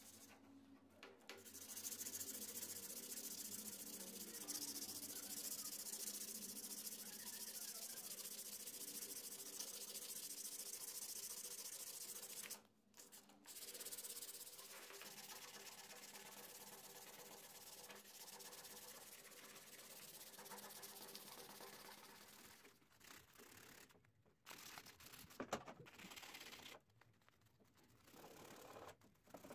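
Sandpaper rubbed back and forth by hand over steel lasting pincers: a steady scratchy rubbing that breaks off briefly about 12 seconds in and again around 23 seconds, then goes on in shorter, uneven spells near the end.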